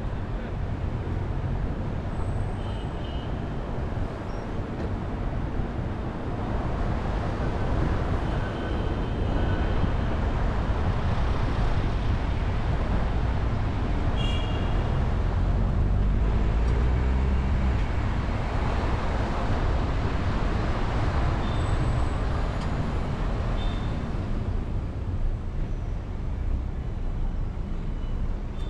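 Steady city traffic noise heard from a moving car: a low rumble of tyres and engines that swells and eases as vehicles pass, with a few faint, short high-pitched tones.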